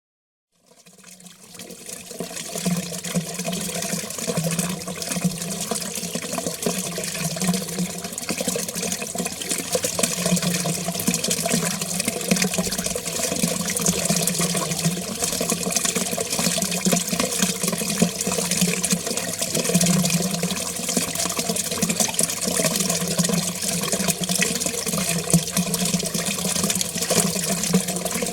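Water running and gurgling down a drain, fading in over the first two seconds and then flowing steadily with an uneven low swirl.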